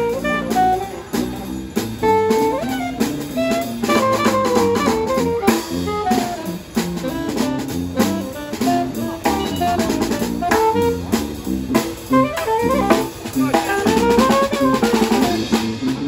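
Small street brass band playing a lively jazz-style tune: tuba, trombone, saxophone and other horns over a snare drum and cymbal beat.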